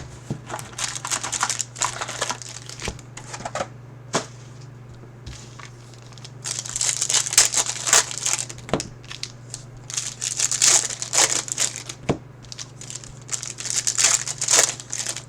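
Plastic wrapping crinkling and tearing as a box of trading cards and its packs are opened by hand, in irregular bursts with a few sharp clicks between. A steady low hum runs underneath.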